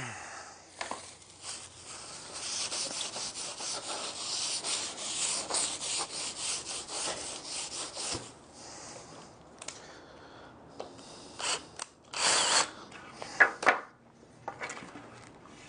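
Hands rustling and brushing through a heap of curly wood shavings on a wooden sticking board, a dense crackling run for several seconds. A few separate scrapes and knocks of wooden moulding strips being handled follow, the loudest about twelve seconds in.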